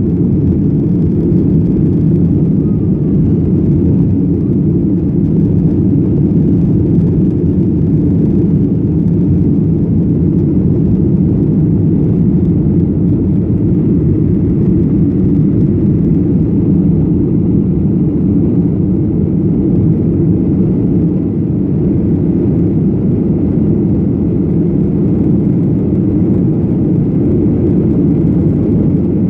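Jet Airways airliner during its takeoff flight: a loud, steady low drone of jet engines and airflow, even throughout with no changes.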